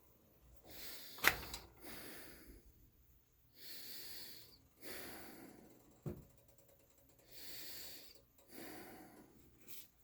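A person's heavy breathing: about six slow, noisy breaths a second or two apart. Two sharp clicks come through, the louder one just over a second in and another about six seconds in.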